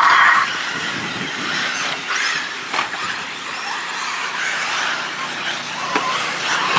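1/8-scale electric RC buggies racing on a dirt track, their electric motors whining high and rising and falling as they accelerate and brake. The whine is briefly louder right at the beginning and again just at the end.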